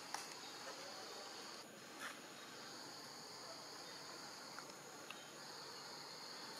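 Insects drone steadily at a high pitch, dropping out briefly about two seconds in. A few faint clicks sound over it.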